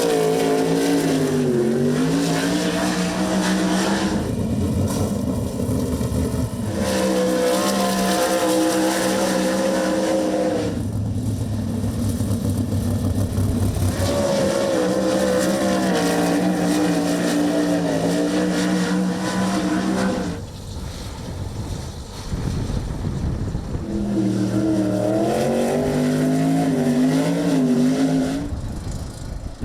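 Sprintcar V8 engines running hot laps on a dirt oval, the engine note rising and falling as the cars go on and off the throttle through the turns. The sound changes abruptly every few seconds, from one pass of a car to the next.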